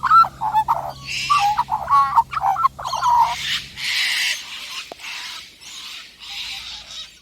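Bird calls: a quick run of warbling, pitch-bending calls for the first three seconds or so. Then comes a series of separate harsh, hissy sounds, each about half a second to a second long.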